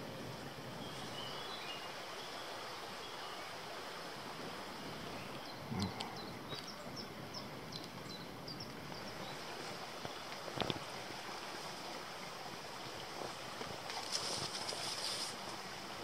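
Steady outdoor background noise with a few short, high bird chirps about six to nine seconds in, a sharp click near eleven seconds and a brief rustle near the end.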